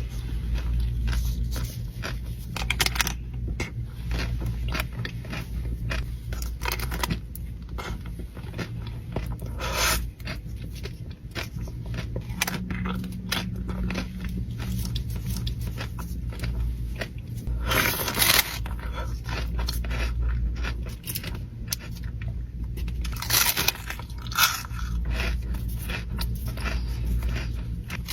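Close-miked eating: crunchy bites and chewing with scraping sounds, a few louder crunches standing out among many small clicks.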